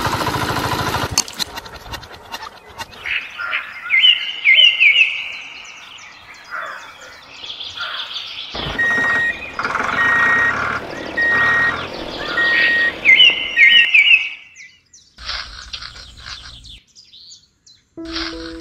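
Small electric motor of a toy tractor water pump whirring steadily, cutting off abruptly about a second in. Then birds chirping, with bursts of quick rising chirps and a run of short, evenly spaced piping notes.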